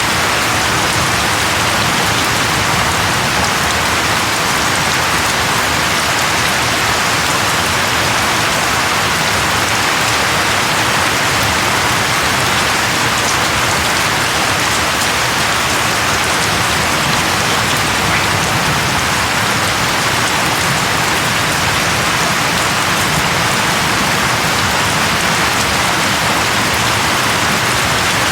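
Steady rain falling and pattering on a surface, an even hiss with no let-up or thunder.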